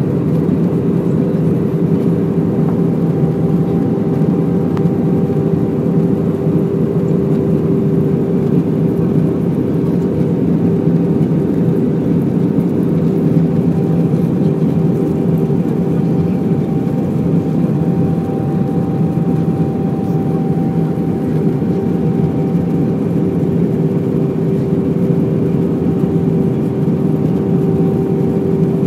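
Steady cabin noise inside an Airbus A320 airliner on descent: engine and airflow noise with a steady low hum under it and a faint higher tone that fades in and out several times.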